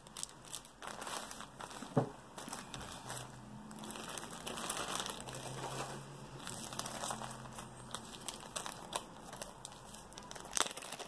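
Small plastic zip bags and tape crinkling and rustling as the tape is cut off with scissors, with a few sharp clicks.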